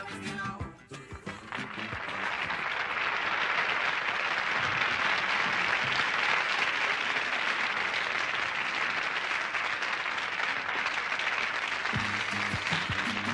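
The last notes of a rumba song, then a studio audience applauding steadily for about ten seconds; band music starts again near the end.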